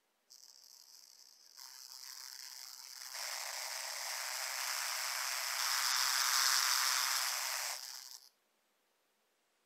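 Tiny DC drive motor and gears of a 1/87-scale micro RC car whirring with its wheels spinning freely off the ground. The whir rises in steps as the throttle is opened, about a second and a half and three seconds in, is loudest a little past the middle, then dies away and stops about eight seconds in as the car decelerates.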